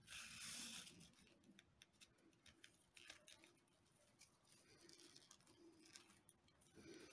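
Faint rustling and light crackling of paper yarn as a needle and paper cord are drawn through a crocheted paper-yarn hat. A brief louder swish comes right at the start.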